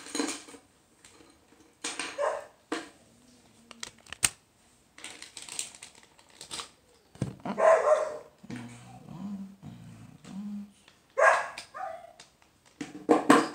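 A dog barking in separate bursts every few seconds.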